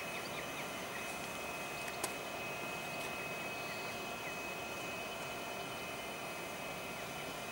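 Faint, steady background hum of a railway station with electric trains standing, with one sharp click about two seconds in.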